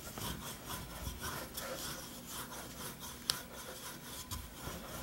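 Wooden rolling pin rolling back and forth over floured puff pastry dough on a wooden board: a faint, repeated rubbing, with a single sharp click about three seconds in.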